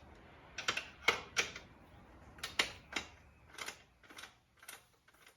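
Sharp metallic clicks, about a dozen at uneven half-second intervals, growing fainter near the end: a hex key working the 8 mm seat bolt on a motorcycle.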